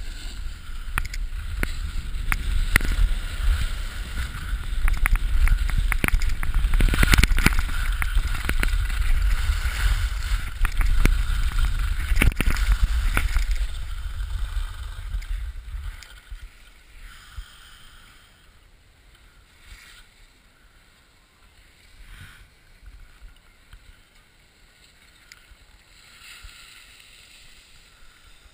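Wind rumbling on the action camera's microphone and the scrape of edges on hard-packed snow during a fast run down a ski slope. About sixteen seconds in, the rumble drops away and the sound quiets to light, scattered scraping as the rider slows.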